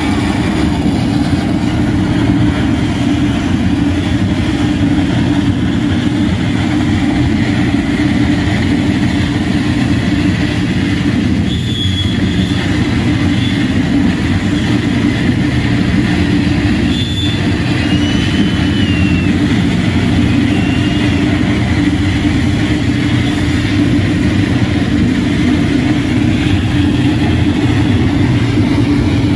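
Live harsh noise performance: a loud, unbroken wall of distorted electronic noise from table-top electronics, heaviest in a low rumble. Brief high whistling tones cut through about twelve and eighteen seconds in.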